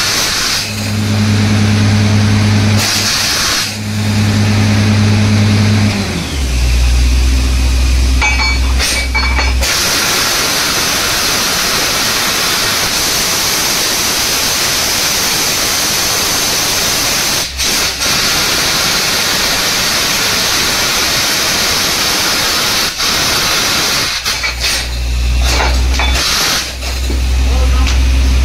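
Borewell drilling rig at work: its engine runs with a steady hum that drops lower about six seconds in, then a loud, steady hissing rush takes over for about fourteen seconds before the engine hum comes back near the end.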